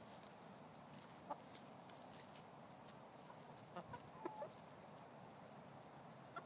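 Chickens clucking softly: a few short, quiet clucks about a second in and again around four seconds in.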